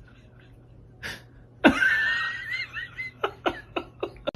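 A person laughing: a high, wavering squeal that breaks into a run of short breathy bursts.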